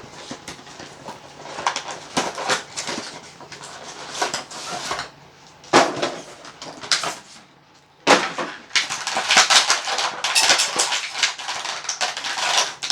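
Action-figure packaging being opened by hand: irregular crinkling and rustling of plastic and cardboard with scattered sharp clicks, a short lull about eight seconds in, then denser crinkling.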